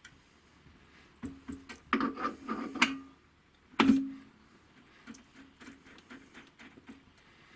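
Metal clinks and knocks as a lathe's handwheel is worked onto the headstock spindle and its flats lined up, with a cluster of knocks about two to three seconds in and one sharp knock just before four seconds that rings briefly, then light ticks.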